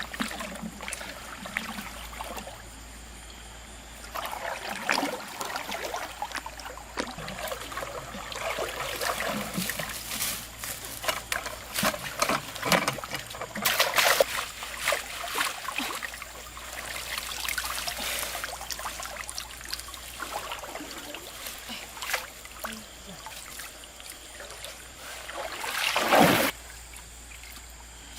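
River water splashing and trickling, with frequent irregular splashes and one loud splash about two seconds before the end.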